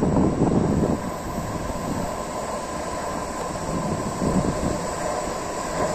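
Car-carrier freight train approaching along the track: a steady distant rumble of wheels on rail with a faint high whine over it, and a brief louder rush in the first second.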